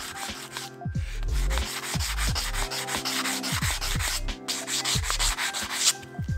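Fine P400 sandpaper rubbed back and forth by hand on a steel crankshaft's oil-seal journal, a dry scratchy hiss in repeated strokes with brief pauses. It is polishing light rust off the seal contact surface. Background music plays underneath.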